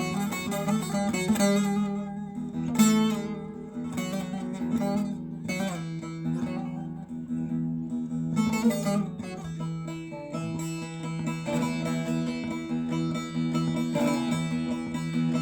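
Background music: a plucked string instrument playing a melody over a steady low drone.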